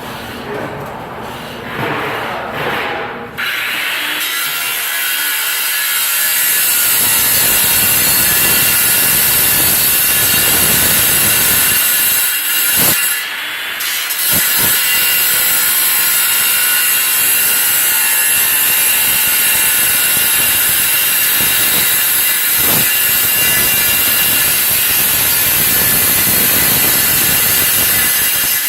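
A power tool cutting through large HVAC pipe: a steady, loud, high-pitched cutting hiss that sets in about three and a half seconds in, drops away briefly near the middle, then carries on.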